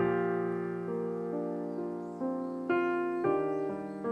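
Slow background piano music: sparse notes and chords, each struck and left to ring out.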